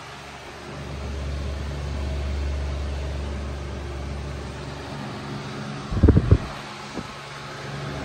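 2002 Patton U2-1487 high-velocity fan running steadily: a constant motor hum under a low rumble of its airflow buffeting the microphone. A few loud thumps come about six seconds in.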